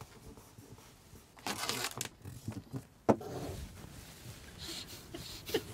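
Rustling and crinkling of a sheet of self-adhesive vinyl wrap being handled and pressed onto a wall, in short bursts, with a sharp tap about three seconds in.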